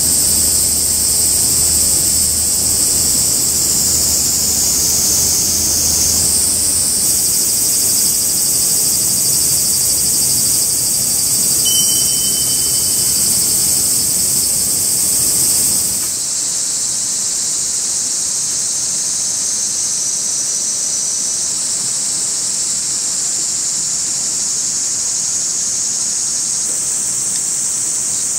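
Steady high-pitched chorus of summer insects, cicadas and crickets, droning without a break; about halfway through it shifts to a slightly different, thinner chorus and a low rumble underneath drops away.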